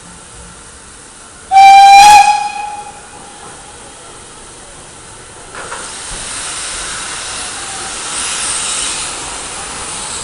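Steam locomotive 58 311 (Prussian G 12) gives one short, loud whistle blast about a second and a half in. From about halfway on there is a steady, loud hiss of steam blowing from its open cylinder drain cocks as it starts away from a standstill.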